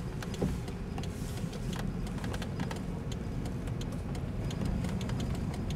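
Car engine and road noise heard from inside the cabin of a moving car: a steady low rumble.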